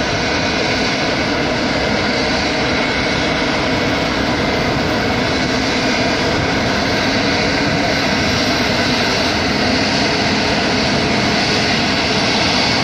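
Bombardier CS100 airliner's Pratt & Whitney PW1500G geared turbofan engines running at taxi power: a steady whine over a rush of jet noise, growing slightly louder near the end as the aircraft taxis closer.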